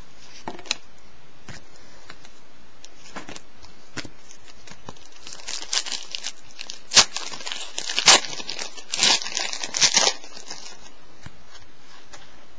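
Clear plastic wrapper of a trading-card pack being torn and crumpled: a few light clicks of card handling, then a loud burst of crinkling from about five and a half to ten seconds in.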